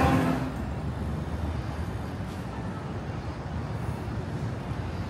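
Steady city street ambience: a low, even rumble of passing traffic, with the tail of music cutting off at the start.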